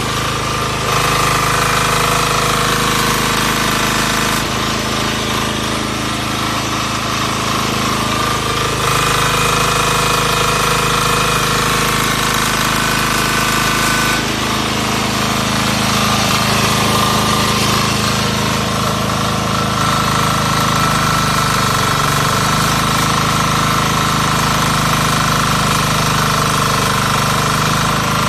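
5 kVA welding generator's engine running steadily and loudly, its sound shifting in character a few times without stopping.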